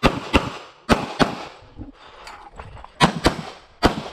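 Infinity 2011 pistol in .40 S&W firing quick pairs of shots: two pairs a little over half a second apart, a pause of about a second and a half, then another pair and a single shot near the end.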